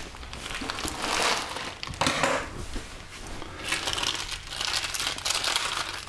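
Plastic freezer bags crinkling and rustling as they are unwrapped by hand and strips of packing tape are pulled off them, in irregular bursts.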